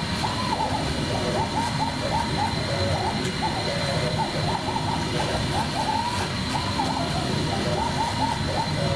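CNC router machining high-density tooling foam: a steady high spindle whine over a constant rush of noise, with short motor tones that keep shifting up and down in pitch as the machine moves.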